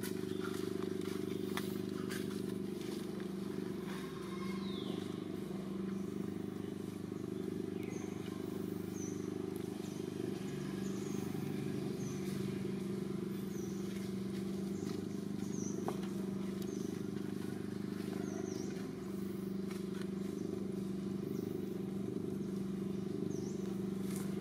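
Steady low mechanical hum, like an engine running, with short high bird chirps repeating about once a second through much of it.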